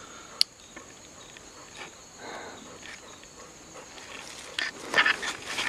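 Steady high-pitched insect drone in the woods, with one sharp click about half a second in and a run of crackling rustles in dry leaves and brush near the end.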